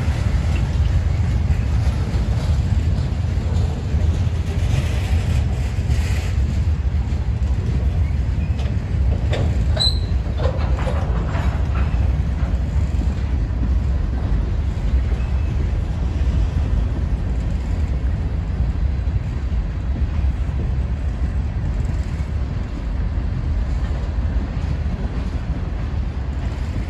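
Norfolk Southern freight train rolling past, a steady low rumble, with a few brief high squeals about ten seconds in.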